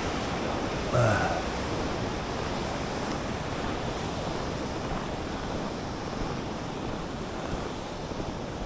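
River rapids rushing steadily below. A brief, louder sound stands out about a second in.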